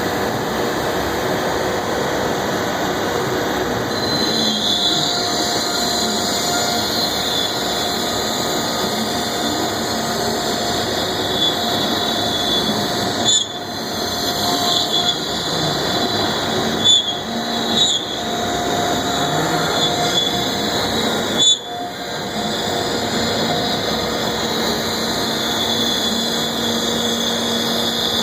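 AXYZ Series 4008 CNC router running under power: steady machine noise with a high whine that comes in a few seconds in, broken by a few brief clicks and dips.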